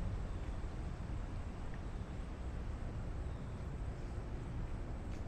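Steady low rumble of outdoor city ambience, with a faint hiss above it and no distinct events.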